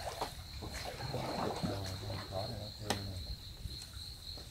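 Insects trilling in a steady, unbroken high chorus, with a single sharp knock about three seconds in.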